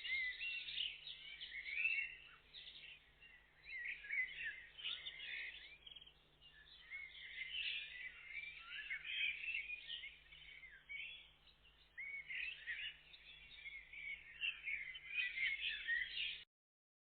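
Several songbirds chirping and singing at once, many quick overlapping calls coming and going in waves, over a faint steady low hum. The sound cuts off suddenly near the end.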